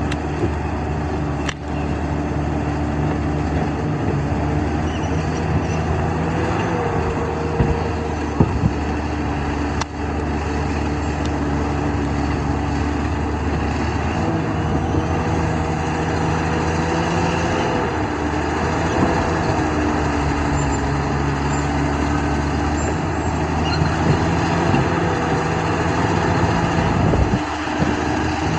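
Bulldozer's diesel engine running continuously, its pitch rising and falling as the load changes, with a few short clanks.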